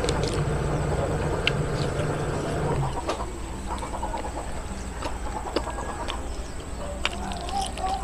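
Chickens clucking in the background, their short calls clearest near the end, with scattered small clicks from fingers picking at food on a plate. A low steady hum stops about three seconds in.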